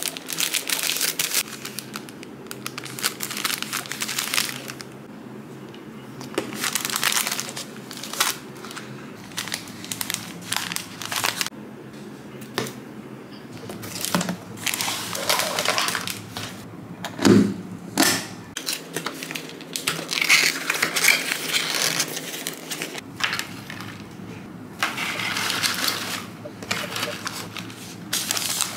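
Paper packaging crinkling and rustling as a wrapped parcel is handled and a cardboard box with shredded paper filling is opened, in irregular rustles with small clicks and one louder knock a little past the middle.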